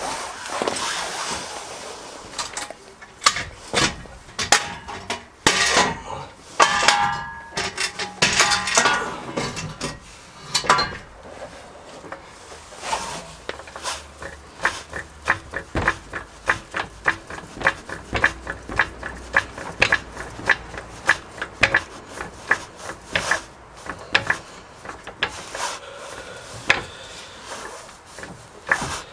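Hand tools knocking and clanking on the metal parts of a car's rear suspension. A ringing metallic clatter comes a few seconds in, followed by a long run of quick, even taps, about three or four a second.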